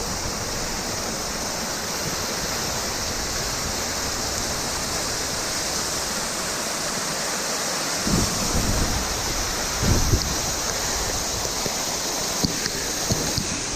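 Mallyan Spout waterfall rushing: a steady, dense wash of falling water. Wind rumbles on the microphone briefly about 8 and 10 seconds in.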